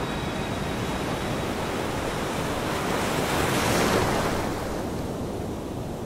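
Sea surf washing on a shore, a steady hiss of water that swells about three and a half seconds in as a wave comes in, then eases off.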